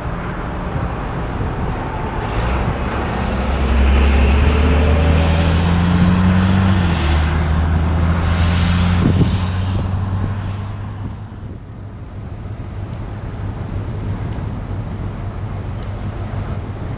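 Diesel-electric freight locomotive drawing close with its engine running, a loud low drone that builds about three seconds in and holds until about ten seconds, with a single sharp knock about nine seconds in. It then gives way to a quieter, steady low rumble of the train heard from farther off.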